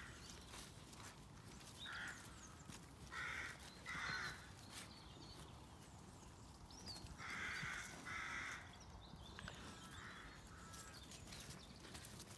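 Crows cawing: about seven short, harsh caws, several coming in pairs. Faint ticks and rustles from steps in the grass underneath.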